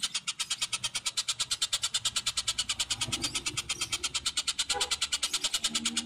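A high, rapid animal trill pulsing evenly at about eleven beats a second, without a break, from a masteran recording of the kind played to train contest songbirds. Faint lower sounds come in about three seconds in and again near the end.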